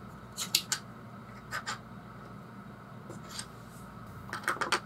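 Small hard-plastic capsule-toy parts clicking and tapping as they are handled and fitted together: a few sharp clicks near the start, two more about a second and a half in, and a quick run of clicks near the end.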